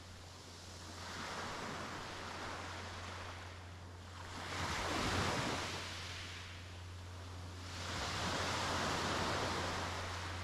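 Sea waves breaking and washing onto the beach in three swells of surf, a few seconds apart, the loudest about five seconds in. A steady low hum runs underneath.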